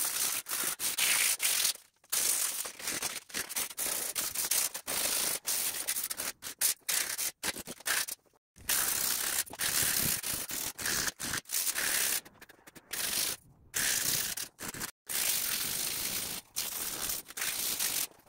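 A 60-grit sanding disc rubbed by hand over the rusty metal tubes of an ATV rack: rasping sandpaper strokes, sped up and chopped into short pieces with abrupt cuts and brief gaps.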